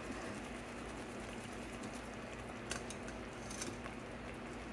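Faint wet scraping of a spoon pressing chile sauce through a wire-mesh strainer, over a low steady hiss from pots simmering on the stove, with a couple of soft clicks near the middle.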